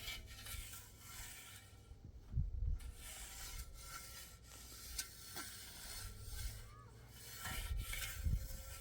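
Garden soil being worked by hand while sowing seeds: uneven scraping and rubbing, with dull low thuds about two and a half seconds in and again near the end.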